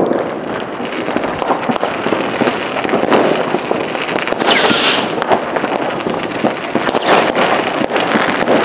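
Fireworks and firecrackers going off all over a town: a continuous crackle of many distant bangs and pops. About halfway through, a louder hiss lasts about half a second.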